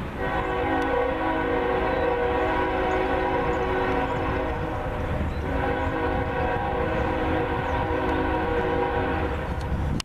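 Locomotive air horn sounding for a grade crossing: two long held blasts of several steady notes, with a brief break about halfway through.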